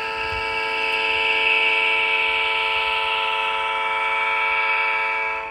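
The Quantum sound decoder in an HO-scale Atlas EMD SDP35 model locomotive playing one long diesel horn blast through its onboard speaker. It swells over the first second, holds steady, and cuts off after about five and a half seconds.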